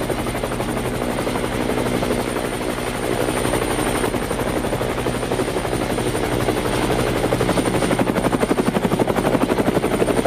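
Helicopter running, its rotor chopping in a fast, even pulse under a thin steady high whine. The chop eases a little a few seconds in, then grows stronger again toward the end.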